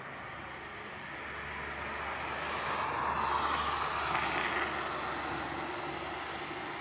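An unseen vehicle passing: a rushing noise that builds to a peak about halfway through, then fades.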